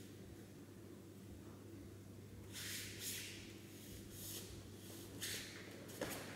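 Faint scuffling of two judoka gripping and moving on tatami mats: a few short hissing scuffs in the second half, about a second apart.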